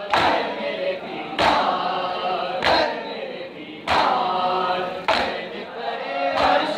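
A group of men chanting a nauha, a Muharram lament, led over a microphone and kept in time by matam: sharp chest-beating slaps land together about every second and a quarter, six times.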